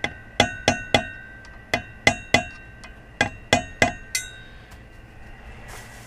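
Block of 2x4 wood knocking a propeller onto the shaft of a Johnson 150 outboard to seat it: about eleven sharp knocks in quick groups of two to four, each leaving a metallic ring, stopping a little after four seconds in.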